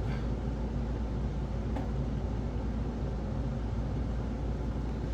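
Steady low background hum with a faint click about two seconds in.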